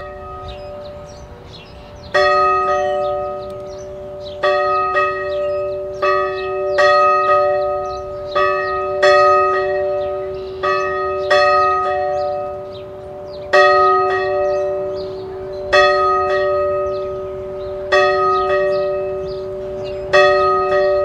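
A church bell tolling: about a dozen strikes, one every one to two seconds, beginning about two seconds in. Each strike leaves a long ringing hum that carries on under the next.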